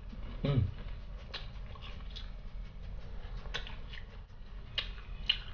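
Close-miked chewing and lip smacking while eating sauce-covered fried chicken, with scattered soft wet clicks, and a short hum about half a second in.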